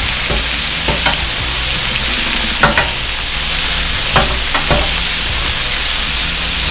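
Burger patties, jalapeño slices and mushrooms sizzling steadily on a flat-top griddle. Metal spatulas scrape and tap on the griddle several times as the food is turned.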